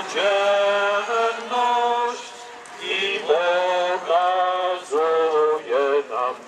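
Voices singing a slow church hymn in unison, with long held notes and short breaks between phrases.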